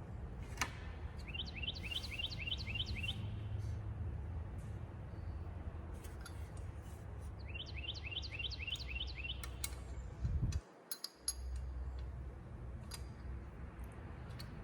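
A songbird sings two phrases of quick, evenly repeated rising chirps, about four notes a second, over a steady low rumble. Faint scattered clicks sound between the phrases.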